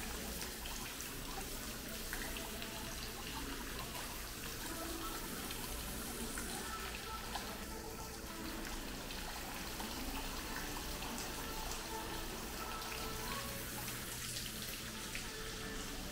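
Indoor mall fountain splashing steadily, an even rush of falling water, with faint music in the background.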